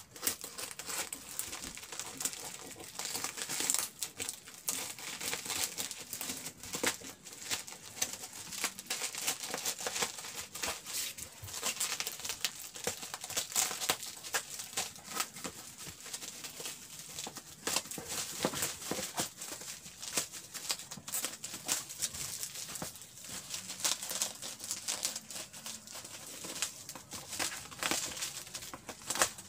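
Plastic film and bubble-wrap packaging crinkling and crackling as it is cut with scissors and pulled open by hand, a continuous run of small crackles.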